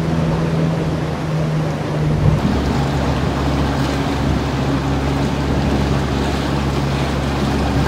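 Danube ferry's engine running steadily under a hiss of water and wind. About two seconds in, its hum changes to a slightly lower, louder note.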